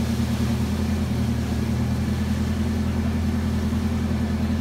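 A large engine running steadily at a constant speed, with a deep, even hum.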